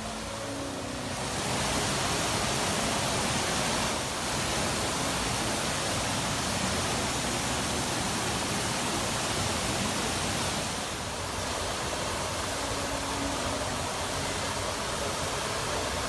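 Waterfall pouring into a pool: a steady rush of falling water that grows louder about a second and a half in.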